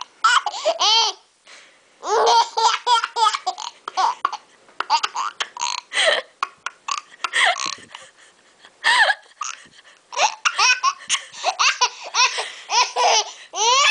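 A baby laughing in repeated bouts at a woman's hiccups, with short sharp hiccups breaking in between the bouts.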